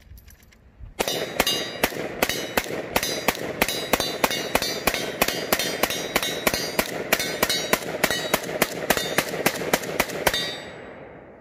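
Zastava ZPAP M70 semi-automatic AK rifle in 7.62×39 firing a long, steady string of shots, about three a second, starting about a second in and stopping about ten seconds in, each shot ringing out.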